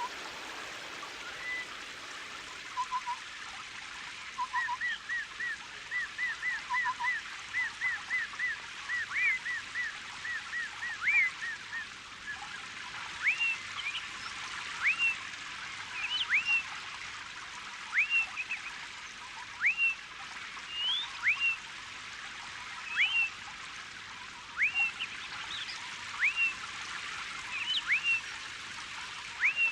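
Birds calling over a steady rush of water. A quick run of short chirps comes first, then from about halfway a single clear whistle that sweeps up and drops off, repeated roughly every second and a half.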